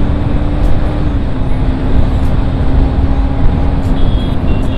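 Wind blasting the helmet-mounted microphone of a motorcycle ridden at highway speed, over a steady engine note that drops slightly about a second in. Faint high-pitched beeps come in near the end.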